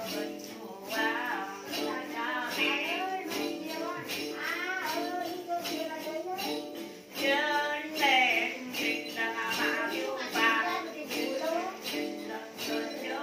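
Then ritual music: a đàn tính, the long-necked gourd lute, plucked in a steady pattern, with a cluster of jingle bells (xóc nhạc) shaken in rhythm and a voice chanting over them.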